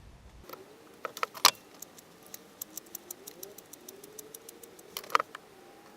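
Metal hand tool working on a threaded steel part: a run of quick metallic clicks, several a second, with louder clinks about a second in and near the end and a faint squeak, as a freshly tapped thread is worked.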